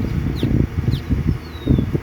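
Uneven low rumbling of wind buffeting the microphone over a running engine, with a few short, high bird chirps and one sliding whistle.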